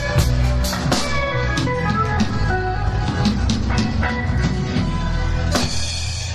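Live rock band playing with drum kit, bass and guitar, the drums keeping a steady beat. A cymbal crash comes near the end and rings on.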